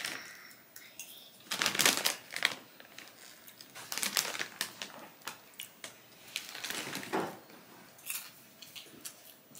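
Large plastic snack bag of popcorn crinkling and rustling in short bursts as a hand reaches in to grab popcorn, loudest about 2 s, 4 s and 7 s in.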